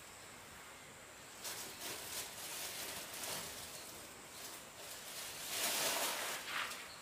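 Plastic bag rustling and crinkling as it is rummaged through and lifted, starting about a second and a half in and loudest about six seconds in.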